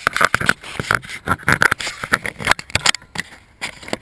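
Rapid, irregular hammer taps with scraping as a retaining pin is driven through the trolling motor foot pedal housing, pausing briefly about three seconds in before a few more strikes.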